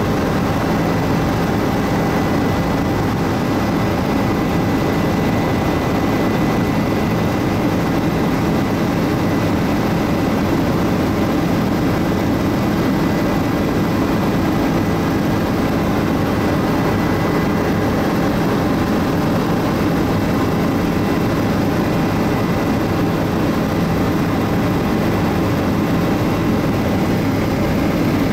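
Bell 407 helicopter in steady cruise, heard from the front seat inside the cabin. Its turbine engine and rotors make an unbroken dense drone, with a thin steady high tone running over it.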